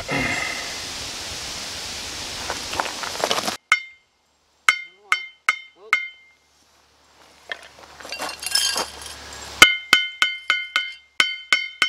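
Steel mason's trowel tapping concrete blocks and scraping mortar. Each tap gives a short ringing clink at the same pitch. The taps are scattered at first, then come in a quick run of about four to five a second near the end.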